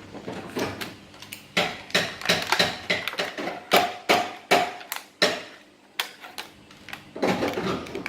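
Scissors snipping plastic ties and hands handling a plastic toy box: a quick, irregular run of sharp clicks and taps.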